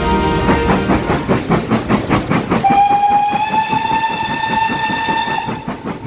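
Steam locomotive chuffing at about four beats a second, sounding one long steady whistle from about three seconds in.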